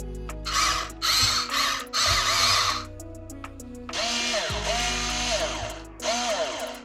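Small electric motors and gearboxes of a Huina 1592 RC excavator whining in repeated bursts a second or two long as its functions are driven. The pitch glides up and down with the proportional control. Background music plays underneath.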